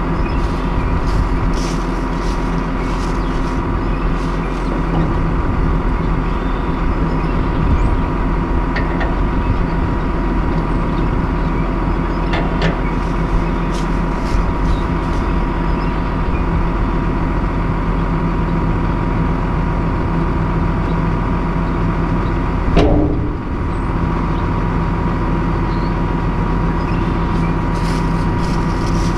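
Case IH MX120 tractor's diesel engine idling steadily. A few light clicks come midway, and a single short thump comes near the end.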